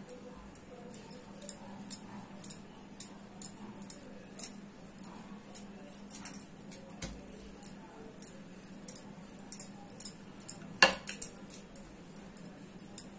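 Wooden rolling pin rolling out a block of laminated pastry dough on a stone countertop: a run of light clicks and taps, about two a second, with one sharper knock near the end, over a steady low hum.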